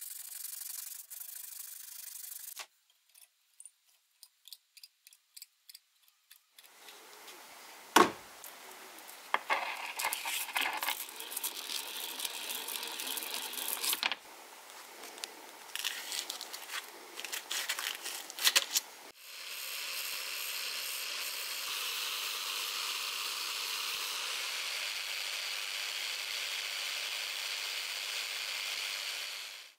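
Steel dagger blade being abraded: steady rubbing at first, then irregular scraping and rubbing with a sharp knock, and from about two-thirds of the way in a steady grinding hiss as an angle grinder's abrasive disc runs against the blade.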